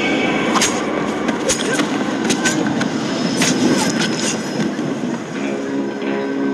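Busy railway-station ambience from a film soundtrack: a steady rumble of trains and crowd, with scattered sharp clicks through the first few seconds. About five seconds in, low sustained music notes come in.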